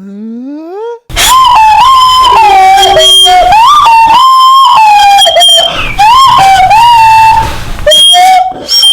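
A high-pitched voice loudly screeching a wordless tune, overloading and distorted. It slides up for about a second, then after a short break goes on with held notes and swoops, with brief gaps near the end.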